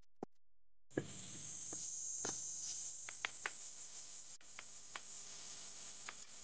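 Steady hiss of background noise, strongest in the high range, with several sharp clicks scattered through it. It starts about a second in, after a near-silent gap broken by two short ticks.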